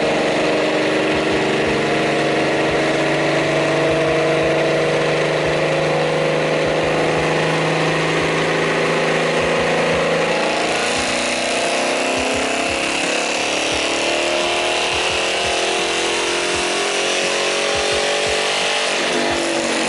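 Modified car engine running loud and steady, held at a raised speed; about halfway through its note shifts and turns brighter and harsher.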